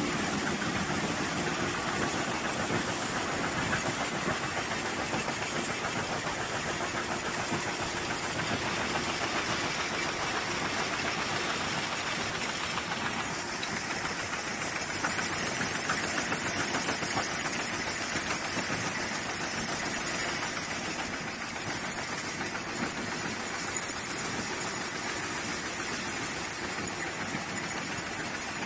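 Wooden coffee stirrer punching machine running, punching stirrers out of wood veneer sheets with a fast, steady clatter. The punched wooden stirrers rattle as they fall out onto the chute.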